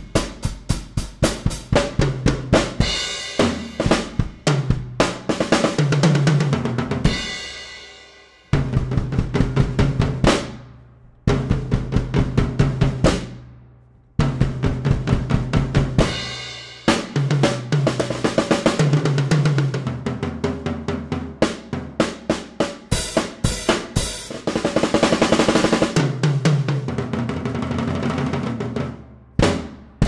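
Pearl Roadshow drum kit played through overhead and close mics: snare and bass drum grooves with tom fills that step down in pitch, several phrases ending on a cymbal crash left to ring and fade. The kit is tuned and damped with drum dots and towels in the bass drum.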